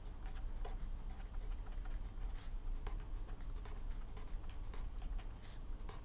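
Pen scratching on paper as someone writes, a scatter of short, soft strokes over a low steady hum.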